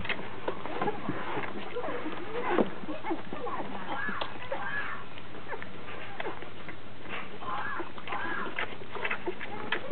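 A litter of young puppies squeaking and whimpering in short, wavering cries while they nurse from their mother, with small clicks and snuffles from suckling throughout.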